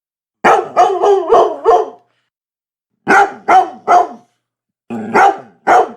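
Labrador retriever barking in three quick runs: about five barks, then three, then three, with short pauses between the runs.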